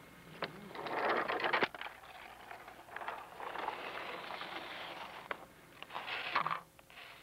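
Handling noise on lake ice: irregular scraping and crackling with a few sharp knocks, as planks and poles are moved and people walk on the ice. It is loudest about a second in and again near the end.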